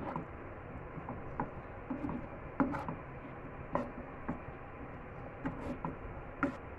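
A spatula stirring chickpeas in a frying pan, with irregular taps and short scrapes against the pan over a steady low hiss.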